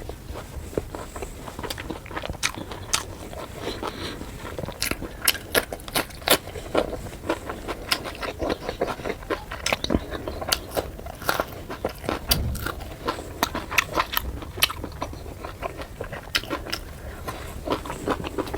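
Close-miked eating of puri with chicken curry: chewing and biting with many sharp, irregular mouth clicks and smacks.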